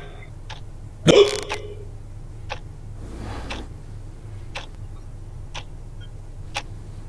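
A single sharp hiccup-like gulp about a second in, followed by faint short clicks roughly once a second and a brief rustle in between.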